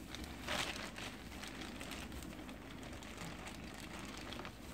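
Faint rustling of a plastic bag and plastic gloves as a measuring spoon scoops powder from the bag. There is a short, louder rustle about half a second in, then a few small clicks.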